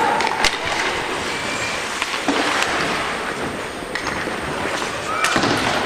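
Ambient noise of a team game in play: a steady rush of noise with a few sharp knocks scattered through it and a short rising shout near the end.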